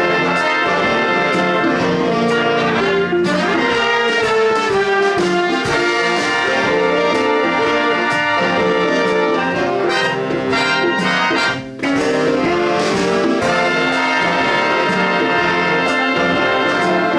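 Big band playing a piece, with the brass section of trumpets and trombones prominent over saxophones; the full band cuts off for a split second about eleven and a half seconds in, then comes back in.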